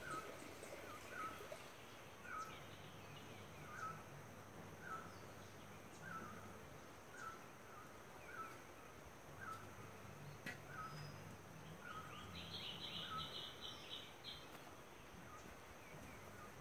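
Faint birdsong: a small bird repeats a short chirp about once a second, and a rapid, higher trill comes in a little after two-thirds of the way through, over a low steady background hum.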